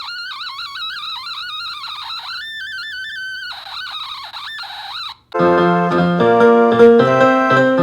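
Otamatone playing a high, wavering, warbling tone that imitates a sound effect, turning scratchier with quick pitch slides before it cuts off about five seconds in. Louder keyboard music with full chords then starts.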